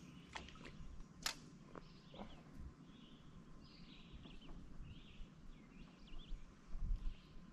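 Faint outdoor ambience with distant bird calls coming and going and a few light clicks and knocks, one sharper click about a second in.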